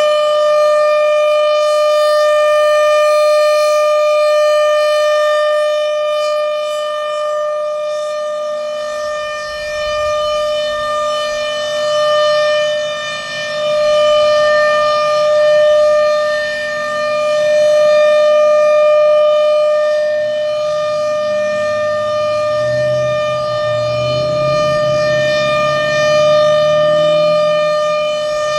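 Federal Signal Thunderbolt 1000 civil-defense siren, blower-fed, sounding a full alert: one loud, steady unbroken tone. It swells and fades slowly over several seconds as the rotating head turns.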